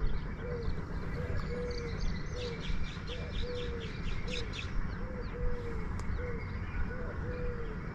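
Birds calling: a low call repeated steadily, often a short note followed by a longer one about once a second. Higher-pitched chirps of small birds come in between about two and five seconds in, over a steady low background rumble.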